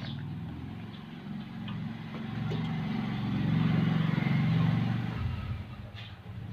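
Low motor hum that swells to its loudest around four seconds in and drops away about a second later.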